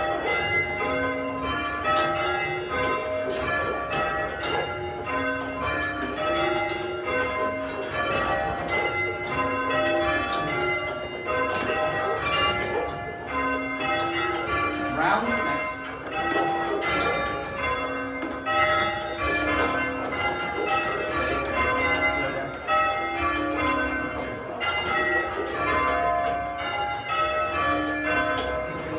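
Church bells being change-rung by a band of ringers, the strokes following each other in an even, unbroken run. The bells range in size from the treble up to a tenor of about half a ton.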